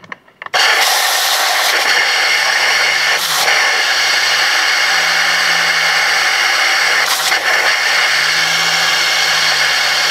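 Compressed air at about 75 PSI driving a 3D-printed air turbine: a loud, steady rushing hiss of air through the spinning rotor, starting abruptly about half a second in.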